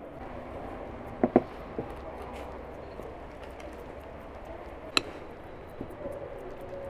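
Metal spoon clinking against porcelain saucers as halva is spooned on and smoothed: two quick clinks about a second in, a lighter tap just after, and another sharp clink about five seconds in, over a steady low background.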